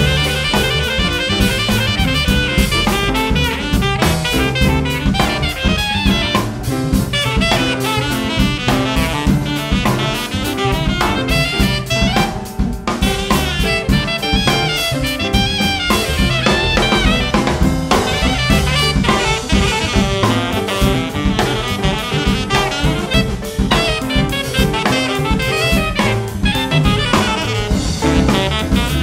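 Jazz quartet playing: alto saxophone lead over piano, bass and a busy drum kit.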